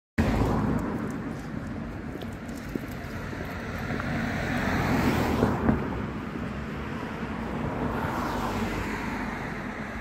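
Road traffic: cars passing, the loudest swelling and fading about five seconds in, with another passing near the end.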